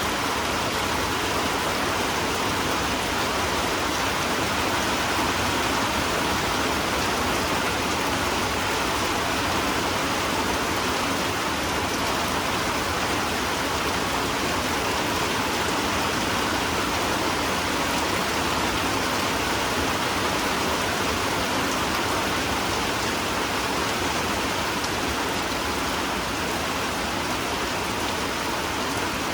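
Steady, even rain falling, with no drops or strikes standing out.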